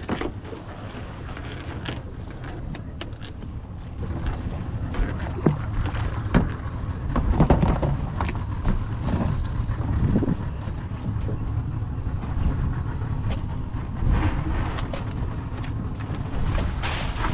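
Wind buffeting the microphone over the low rumble of a small fishing boat at sea, growing louder about four seconds in, with a couple of sharp knocks shortly after.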